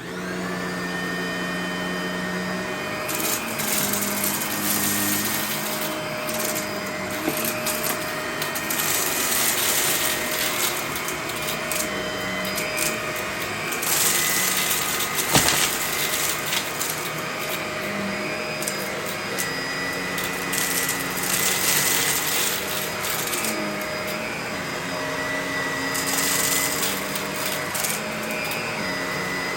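Vacuum cleaner switched on and running, its motor whine settling as it spins up at the start, then a steady drone with repeated surges of louder hiss. There is a sharp click about halfway through.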